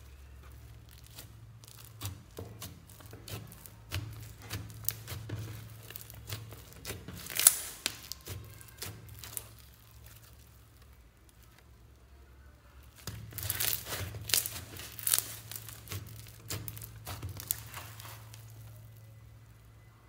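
White slime packed with polystyrene foam beads being squeezed, stretched and pulled apart by hand, giving a run of crackling, crunchy pops. The crackling comes in two spells, with a lull of a few seconds between them.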